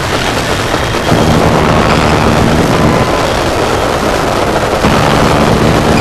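Harsh noise music: a dense, loud wall of distorted static and rumble with low droning tones underneath. It swells about a second in and shifts again near the end.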